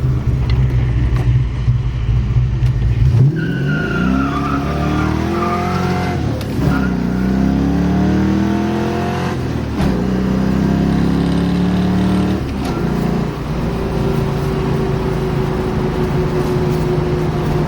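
1989 Ford Mustang's engine pulling hard under acceleration: steady at first, then about three seconds in the revs climb in three rising sweeps, each cut short by a drop in pitch at a gear change, before settling into a steady cruise near the end.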